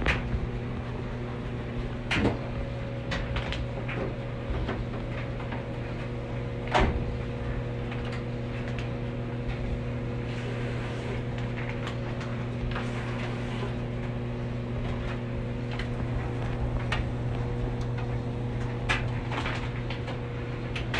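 Steady low hum of a top-load washer and dryer running, with scattered clicks and two louder knocks about two and seven seconds in.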